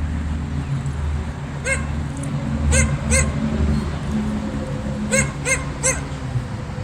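About six short, high yelping animal calls, over a low steady hum.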